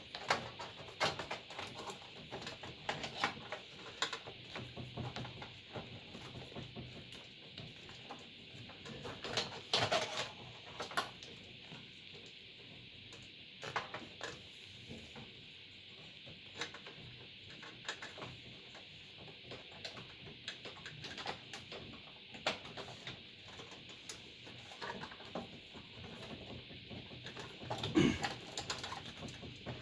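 Scattered clicks and knocks of plastic connectors and metal computer-case parts as a floppy drive cable is plugged in and the PC is put back together, with a louder knock about ten seconds in and another near the end, over a steady hiss.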